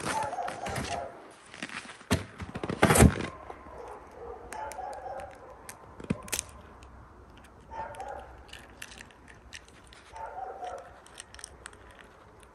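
A dog barking in short bursts, four times or so with pauses between. A loud rustling, crunching noise about two to three seconds in, and scattered small clicks.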